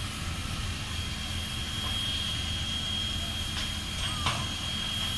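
Strasburg Rail Road No. 89, a 2-6-0 steam locomotive standing at the water tower while taking on water, gives a steady low rumble with a thin, steady high whine over it. A couple of short chirps and a faint click come about four seconds in.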